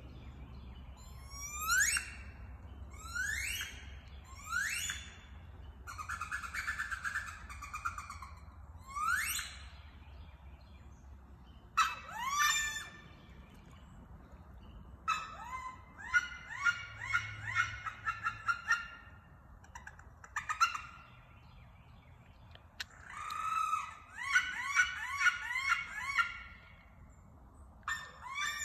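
Wood duck squeals: a few single high rising squeals, then quick runs of short rising notes.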